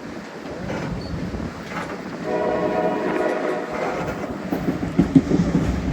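White Pass railway train running on the tracks with wheel clatter; about two seconds in, the locomotive's horn sounds once for about a second and a half.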